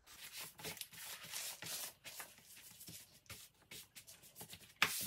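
Baking paper rustling and crinkling as a sheet of puff pastry is unrolled and smoothed flat by hand on a wooden board, with a few small taps and one sharper knock near the end.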